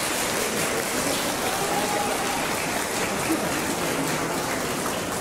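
A steady, even hiss with faint voices mixed in.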